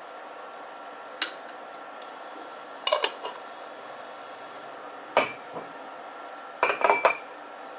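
Kitchen dishes and utensils being handled, with sharp clinks and clatters: one about a second in, a few near three seconds, one past five seconds, and a quick run of clatter near the end, over a steady background hum.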